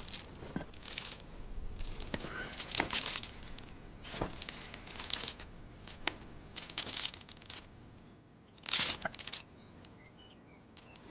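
Irregular rustling and crinkling, coming in short bursts a fraction of a second long, with a few sharp clicks among them.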